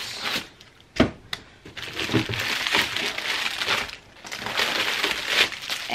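Cellophane-wrapped packages crinkling and rustling as they are lifted and shifted in a cardboard box, with a sharp knock about a second in.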